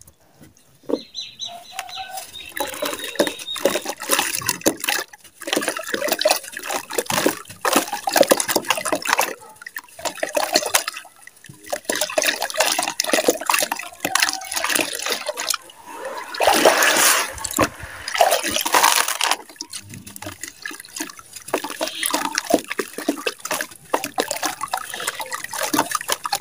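Hands crumbling a dry mud bar in a tub of water: irregular splashing and sloshing mixed with gritty crumbling as the soaked bar breaks apart.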